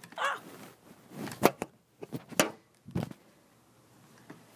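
Handling noise from a phone being set down: a few sharp knocks and rubs against its microphone in the first three seconds, then quiet room tone.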